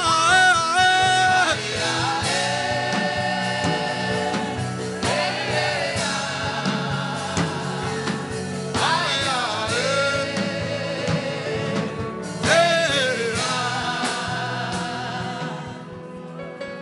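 Gospel worship singing, voices with vibrato over a steady low accompaniment, fading out near the end.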